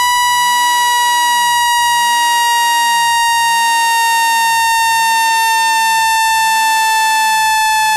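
Synthesized speaker-cleaning tone, the kind played to shake water and dust out of a phone speaker: one steady, loud, high electronic tone with overtones, slowly gliding down in pitch.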